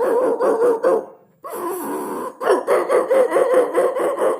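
A man imitating a dog with his voice: quick, pulsing whining yelps at about eight a second, breaking off about a second in, then a smoother held call and a second run of pulsing yelps.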